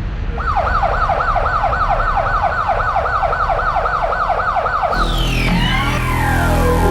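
Goal siren warbling with rapid repeated rising sweeps, about four a second. About five seconds in it gives way to a long falling glide as dance music with a steady low beat starts.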